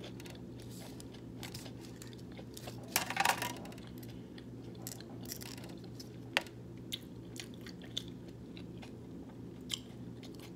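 A person chewing food close to the microphone, with scattered mouth clicks and a denser crunchy burst about three seconds in, over a low steady hum.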